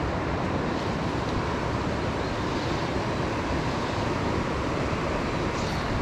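Steady rushing of fast river water, an even, unbroken hiss with no pitch to it.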